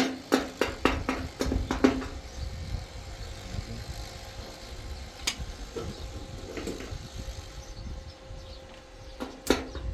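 Percussive background music with a steady wood-block-like beat for about two seconds, then a low rumbling noise with a single click about five seconds in. The beat comes back near the end.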